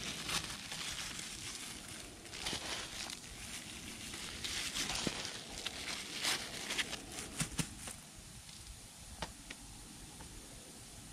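Clear plastic bag and thin plastic glove crinkling as dry granular fertilizer is shaken out and sprinkled onto the soil, a run of rustles and small crackles that dies down about eight seconds in.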